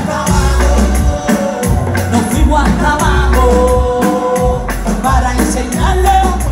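Live concert music through the venue's sound system: a woman singing held notes over a heavy bass beat with percussion, recorded from within the crowd.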